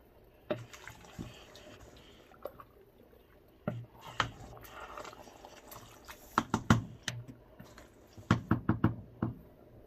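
Pot of spinach soup with meat and fish simmering: thick bubbles pop in quick clusters of several at a time over a soft hiss.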